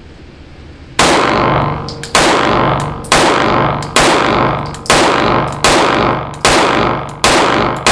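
CZ P-09 Nocturne compact pistol fired slow and steady for accuracy, starting about a second in: nine shots at roughly one a second, the last right at the end. Each shot rings out briefly in the indoor range.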